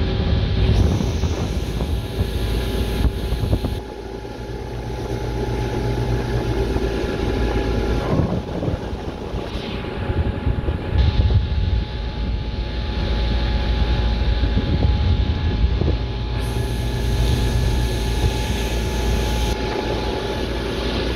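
Mercury 150 EFI outboard motor running steadily at speed under the load of towing a tube, with wind buffeting the microphone and the wake's water rushing.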